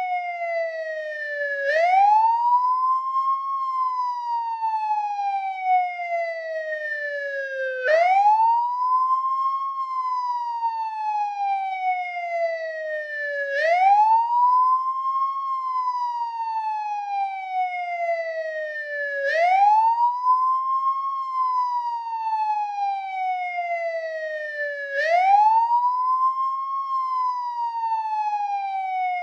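American police car siren on its wail setting: one tone that sweeps up quickly over about a second and a half, then glides slowly down over about four seconds. The cycle repeats about every six seconds, five rises in all.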